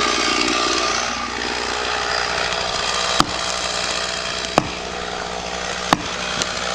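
Chainsaw running steadily as it cuts into a tree, with four sharp cracks spaced over the second half.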